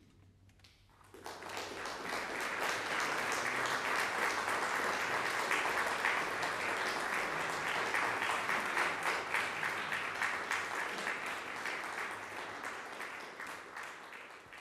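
Audience applauding: a dense patter of clapping that starts about a second in, builds quickly, holds steady and begins to die away near the end.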